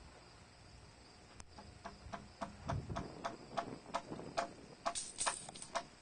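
Rhythmic metallic clinks, about three a second, each with a short ringing note, starting about a second and a half in and getting louder toward the end.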